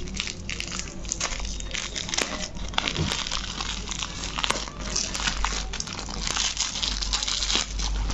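Plastic courier mailer bag crinkling and crackling as fingers pick at and pull on its sealed edge to open it.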